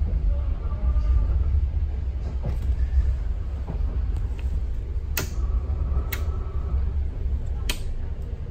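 Steady low rumble of an ICR passenger coach running on the rails, heard from inside the coach, with three sharp clicks in the second half.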